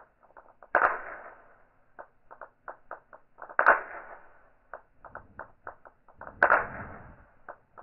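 Steel balls of a seven-ball Newton's cradle clacking in slow motion: three loud clacks about three seconds apart, each ringing off, with strings of small quick clicks from the balls knocking together between them.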